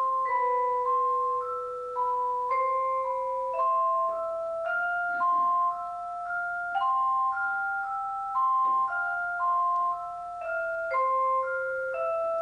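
Vibraphone played four-hands by two players, one on the lower octaves and one on the upper, in a slow melody of two interlocking lines. Each struck note rings on and is damped as the next one sounds.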